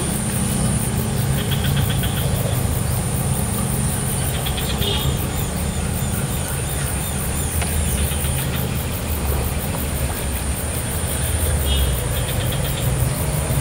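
Steady low drone of an engine running, with short high buzzes now and then.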